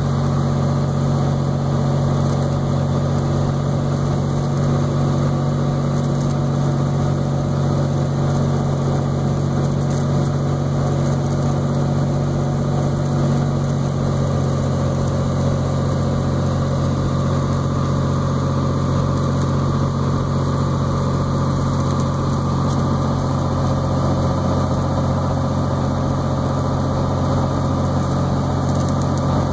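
Cessna Turbo 182T's turbocharged six-cylinder Lycoming engine and propeller droning steadily, heard inside the cockpit on final approach. The tone shifts slightly about halfway through.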